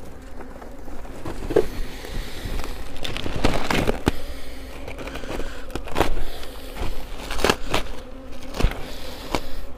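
Knocks, clatters and scrapes of wooden beehive frames and the hive's cloth cover being handled, several sharp knocks in irregular clusters, over the steady hum of honeybees around the open hive.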